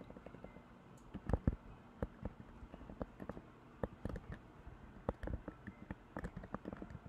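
Typing on a computer keyboard: quick, irregular key clicks, with a cluster of heavier strikes about a second and a half in.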